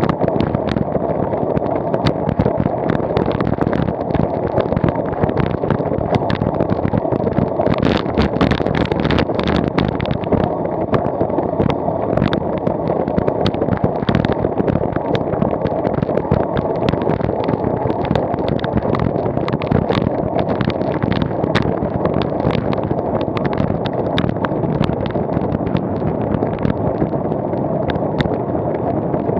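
Steady rushing wind and road noise on the microphone of a camera moving along a road, with many small clicks and rattles throughout.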